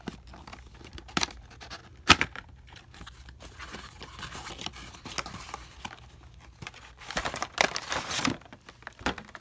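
Cardboard toy packaging being opened by hand: an end flap is pulled open and the plastic tray worked out, with rustling and scraping of card and plastic. A few sharp snaps stand out, the loudest about two seconds in.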